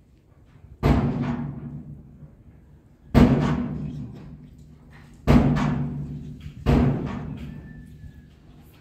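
Background music: four heavy drum strikes about two seconds apart, each ringing out slowly before the next.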